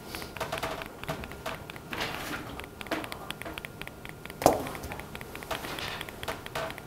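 Quiet classroom with scattered small taps and clicks from students working at desks, and one sharper knock about halfway through.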